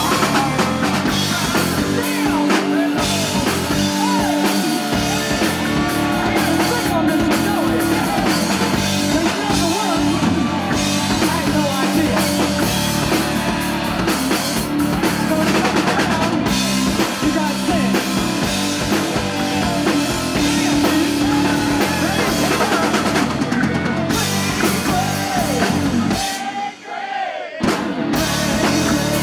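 Live rock band playing: drum kit, electric bass and electric guitar, with a wavering lead guitar line on top. Near the end the drums and bass drop out for a moment, then come back.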